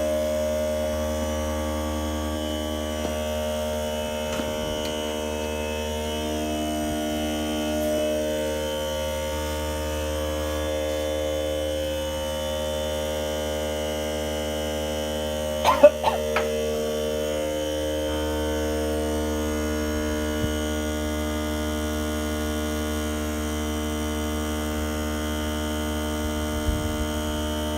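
Steady electrical hum with many even overtones, unchanging throughout, with a short sharp clatter about sixteen seconds in.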